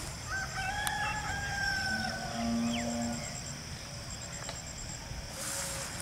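A rooster crowing once, one long call of about two seconds starting just after the start, followed by a brief low tone.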